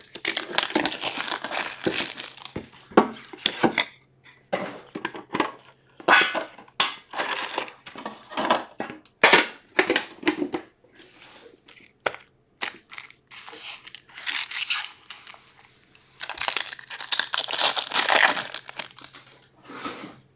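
Plastic and foil wrappers on hockey trading-card packs crinkling and tearing as they are opened by hand. The crinkling comes in long bursts at the start and near the end, with short clicks and crackles of handling in between.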